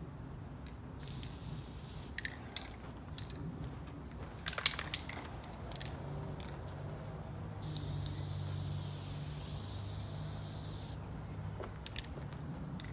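Aerosol can of white spray paint hissing steadily for about three seconds as a line is sprayed onto the wood-chip mulch, after a few sharp clicks. A low steady hum runs underneath.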